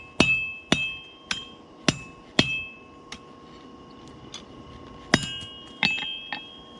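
Hammer blows on hot 5160 spring steel at the anvil, cutting off the excess stock, each strike ringing. About five steady blows half a second apart, then a pause with light clinks, then one hard blow about five seconds in followed by two lighter ones.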